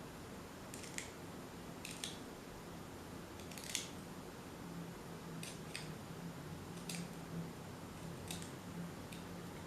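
A sharp cutting tool scraping leftover rubber off the metal hub of a tape recorder's pinch roller. It makes about seven short, crisp strokes a second or so apart, the loudest near the middle.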